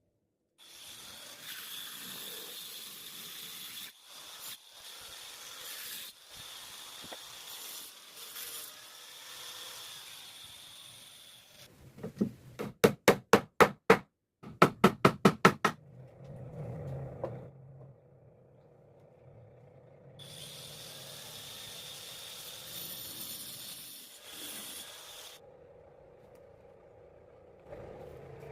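Wood being worked by hand on boat planking: long stretches of scraping and rasping on wood, cut off abruptly in places. In the middle come two quick runs of hammer blows, about seven or eight each and about five a second, the loudest sounds.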